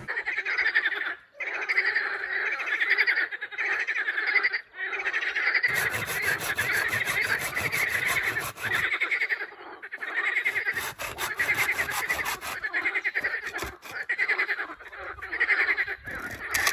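Frog chorus: many frogs croaking at once in rapid pulsed trills, continuous and dense. Twice, for a few seconds about six and eleven seconds in, a rapid run of even, sharp clicks sounds over it.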